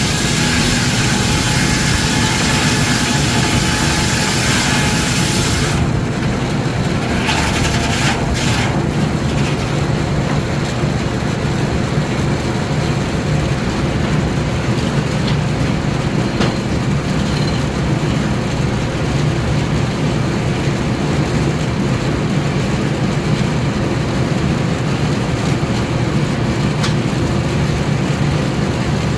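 Steam-engine-driven sawmill machinery running steadily with a low rumble. A loud high hiss over it cuts off suddenly about six seconds in, with a few short bursts of hiss a second or two later.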